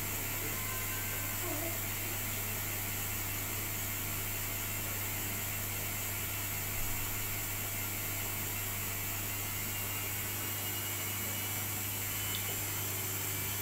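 Bosch WAE20462TR front-loading washing machine running a spin program, giving a steady low hum with a faint hiss. A faint high whine rises slightly in pitch in the second half.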